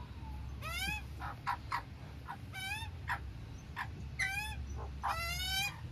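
Young Australian magpies begging: repeated squawks that rise in pitch and then bend down, about four of them, the last one longer, with a few short clicks between.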